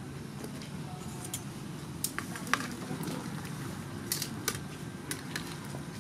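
Water boiling in an aluminium pot, a steady bubbling, with metal tongs clinking against the pot several times as tamarind pods are pushed under; the sharpest clink comes about two and a half seconds in.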